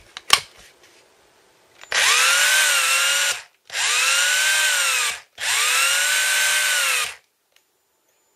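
Bosch GBH 24 VSR 24-volt cordless hammer drill run three times with no load, each run about a second and a half: the motor whine rises as it spins up, holds, and falls away as the trigger is released. A few sharp clicks come just before the first run, near the start.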